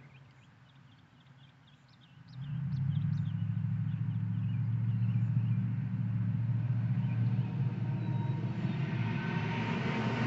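After a quiet start, a steady low rumble begins about two seconds in and runs on, with a hiss building up near the end.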